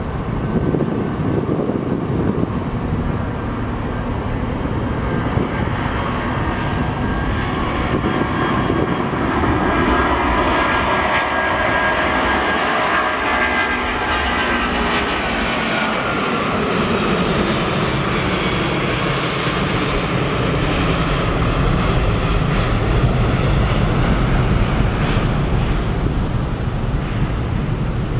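Boeing 777-200ER's twin Rolls-Royce Trent 892 turbofans at takeoff thrust: a loud, steady jet roar through the takeoff roll, lift-off and climb-out. A high whine glides down in pitch around the middle as the aircraft passes the listener.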